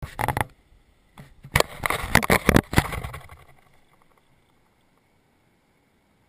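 Handling noise from an action camera being set down and settled on sand: a series of knocks and rubbing scrapes on the camera body through the first three seconds or so, fading out. After that only a faint steady hiss remains.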